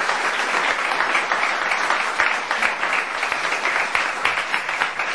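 Audience applauding: dense, steady clapping from a live club crowd.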